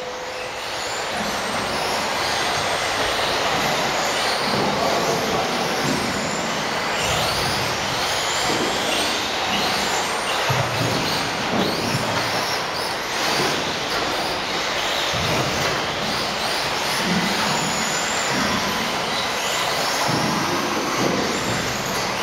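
Several 1/10-scale electric RC off-road buggies racing together: a steady dense whir of motors and drivetrains, with many whining pitches rising and falling as the cars accelerate and brake through the corners.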